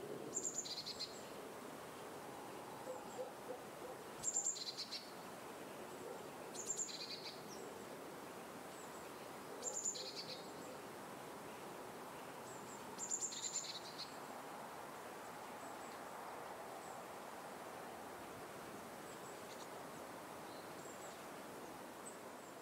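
A bird calling repeatedly: a short, high note dropping to a lower one, about every three seconds, with fainter calls later, over a steady outdoor hiss.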